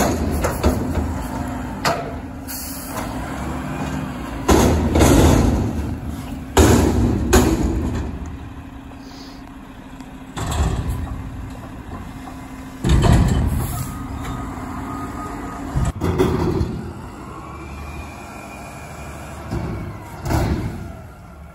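Mack front-loader garbage truck emptying a steel dumpster: the diesel engine runs steadily under a rising and falling hydraulic whine as the arms work. A loud bang comes every few seconds as the dumpster is shaken and knocked against its stops over the hopper.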